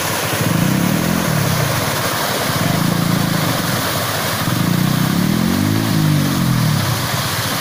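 A vehicle engine running, its note rising and falling several times, over a steady rush of water running off the landslide.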